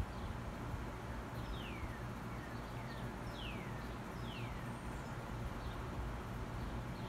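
A bird calling with a series of short, falling whistles, the clearest three coming in the middle. Under it is a steady low rumble.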